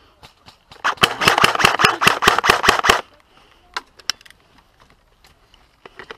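Electric airsoft rifle (Classic Army UMP 45 replica) firing a full-auto burst of about two seconds, at roughly eight shots a second. A couple of sharp clicks follow.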